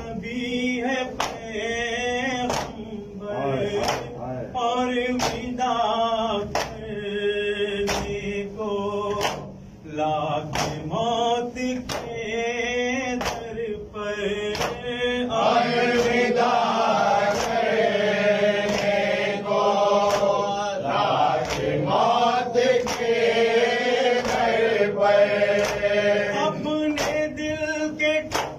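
Men chanting an Urdu noha (Muharram lament), a lead reciter with the group joining in, over rhythmic chest-beating (matam) slaps about once a second. From about halfway through, the chorus grows fuller and louder.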